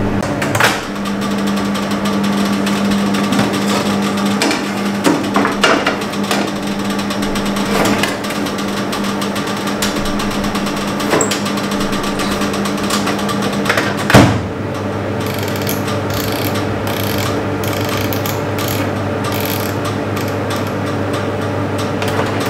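Convection microwave oven humming steadily, with scattered knocks and clatter of a metal baking tray being set inside. A loud thump about 14 seconds in is the oven door shutting, and light clicks near the end come from the keypad being pressed to set the timer.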